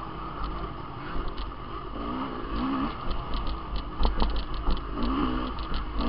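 Dirt bike engine running under the rider, its revs rising and falling a few times over rough ground, with wind noise on the helmet-camera microphone. Short knocks and rattles come from the bike over bumps, most of them around four to five seconds in.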